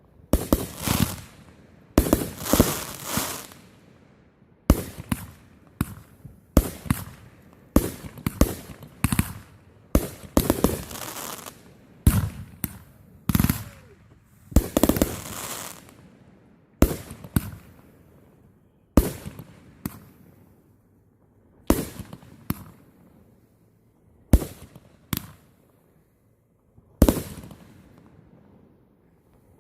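Fireworks going off: a long run of sharp bangs one to two seconds apart, some in quick crackling clusters, each followed by a short echoing tail. The bangs thin out near the end.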